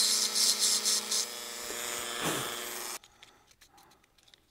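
Dremel rotary tool running at a steady high pitch, with a grinding hiss that comes and goes in the first second; it cuts off suddenly about three seconds in.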